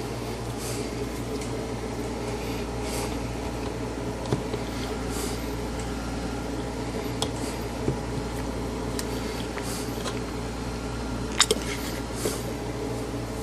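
A few small sharp clicks and taps of things being handled on a workbench, the loudest a quick double click about eleven and a half seconds in, over a steady low electrical hum.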